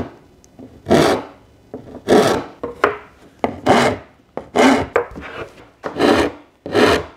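A cheap hand rasp being pushed along the edge of a wooden board, in a steady series of separate scraping strokes, a little more than one a second.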